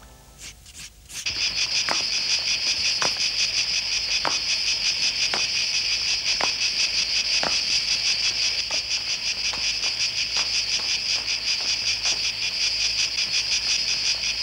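A loud, steady, cricket-like insect chirring, a fast high trill that starts about a second in, with soft clicks about once a second beneath it.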